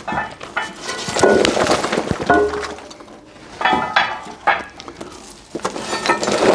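Irregular clinks and scrapes of a metal tool working against the underside of a traction engine's boiler, raking out scale and sludge during a boiler washout.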